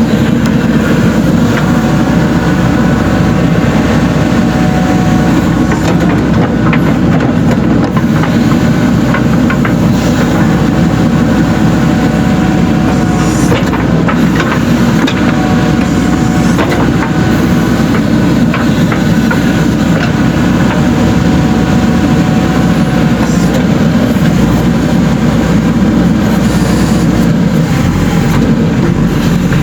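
JCB 3DX Super backhoe loader's diesel engine running steadily while working.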